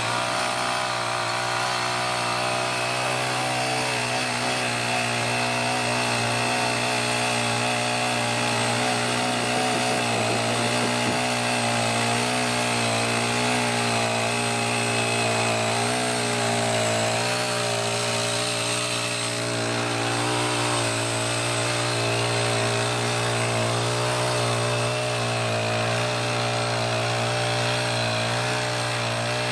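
Small Honda GX35 single-cylinder four-stroke engine of a mini garden tiller running steadily, its pitch wavering slightly.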